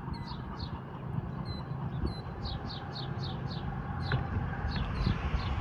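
A songbird singing runs of short, falling chirps, about four a second, over a steady low rumble that grows a little louder near the end.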